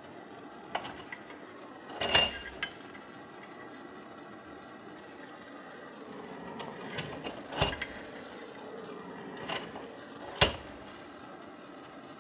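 Three sharp metallic clinks, each with a brief high ring, as steel parts are knocked against the bench vise, with a few lighter clicks in between. A low steady hiss runs underneath.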